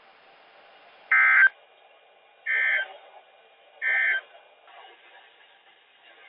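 NOAA Weather Radio's SAME end-of-message data signal: three short buzzy bursts of two-tone digital data about a second and a half apart, the first the loudest, over faint radio hiss. It marks the end of the warning broadcast.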